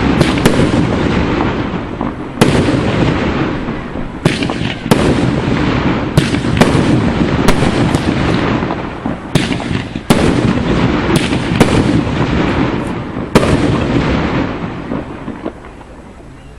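Fireworks display: a rapid string of loud shell bursts, a dozen or more, over a dense continuous crackle and rumble. It dies down near the end.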